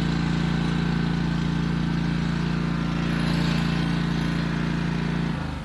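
Wright Stander stand-on mower engine running steadily at full throttle with the choke fully open. It holds speed on its freshly replaced carburetor, a sign that the earlier fault of dying whenever the choke was pushed down is cured. Near the end the pitch drops a little.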